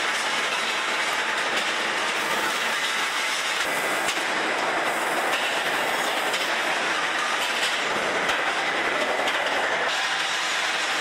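Steel-ball forging line machinery running with a steady, dense clattering noise that does not let up.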